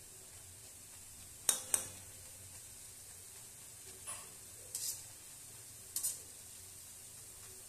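Hot oil sizzling steadily around boondi frying in an iron kadai, with a perforated metal spoon stirring and clinking against the pan. The sharpest clinks come as a pair about one and a half seconds in, with fainter ones near four, five and six seconds.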